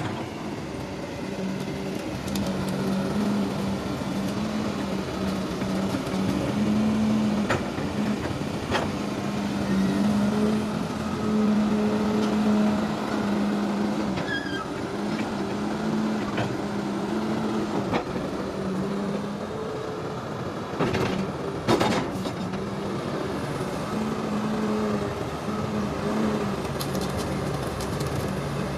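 Diesel engine of a Sany SY365H 36-ton crawler excavator running, its note swelling and easing every few seconds, with a few sharp knocks and a short burst of clanking near the end.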